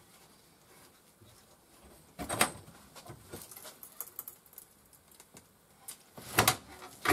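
Homemade sheet metal bender being levered up by its handles to fold a strip of 1.25 mm galvanized sheet steel: sharp metal clicks and knocks, a loud cluster about two seconds in, lighter ticks after it, and another loud cluster near the end.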